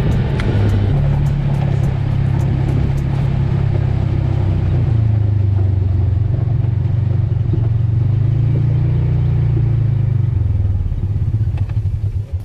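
Ranger side-by-side's engine running steadily under way, heard on board, its pitch stepping up and down a few times with the throttle. It drops away near the end as the vehicle slows to a stop.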